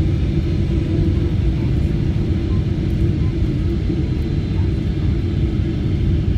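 Steady low rumble of a Boeing 777-300ER's GE90 engines and rushing air, heard inside the passenger cabin during the descent on approach to landing.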